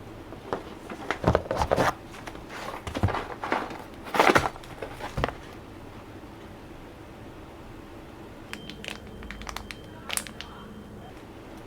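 Irregular clicks and crinkling from objects being handled, loudest in the first half, then a sparse run of fainter clicks with a faint thin steady tone under them near the end.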